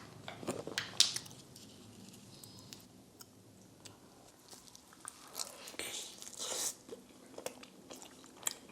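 Close-miked eating of pepperoni pizza: a few sharp, crunchy bites in the first second, then quieter chewing, with a louder, noisier stretch of chewing about five to seven seconds in.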